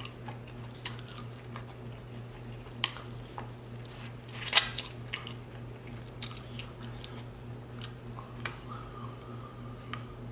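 Close-miked chewing and wet lip-smacking as a person eats sauced chicken wings, with scattered sharp clicks of the mouth and teeth. The loudest come about three and four and a half seconds in.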